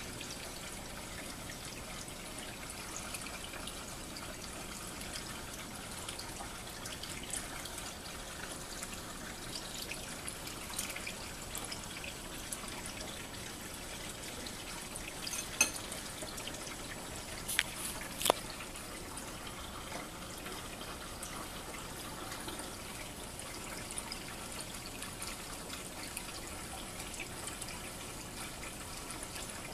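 Steady trickle of aquarium water, with three sharp clicks close together about halfway through.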